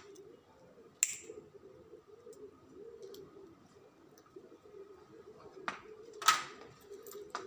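A few sharp clicks and snips of cutting pliers working the end of a coaxial cable, the loudest a little after six seconds in. A faint, low, wavering sound runs underneath.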